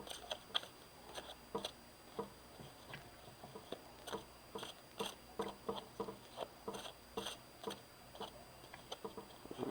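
A tarot deck being shuffled and handled by hand: faint, irregular soft clicks of cards against each other, a few a second.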